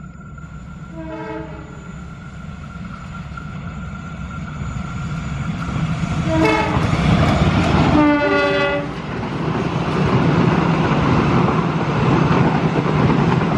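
Diesel-electric locomotive of a passenger train sounding its horn three times, the last and longest blast about eight seconds in, as the train approaches and passes close by. The engine rumble and wheel clatter grow louder through the first half and stay loud to the end.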